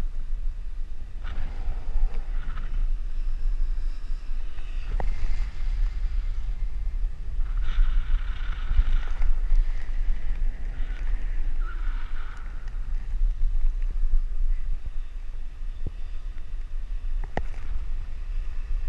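Wind buffeting a handheld action camera's microphone, a steady low rumble, with a few sharp clicks.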